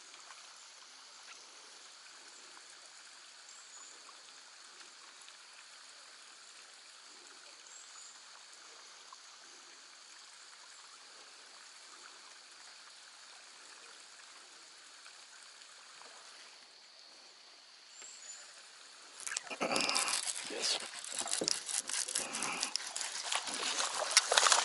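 Faint steady outdoor hiss. About 19 seconds in, a hooked black bass thrashes at the surface on the line, making loud irregular splashing.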